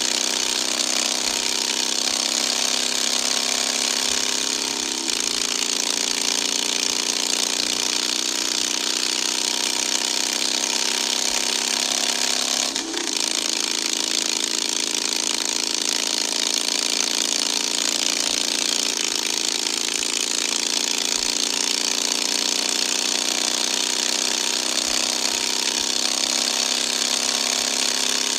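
Motorcycle engine running steadily at highway cruising speed, under a heavy rush of wind noise on the microphone, with a brief dip in the sound about thirteen seconds in.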